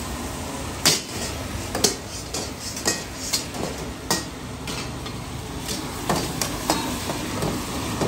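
Long metal ladles and tongs clanking against steel karahi woks at irregular intervals, about once a second, over the steady sizzle of karahi curry frying in the pans.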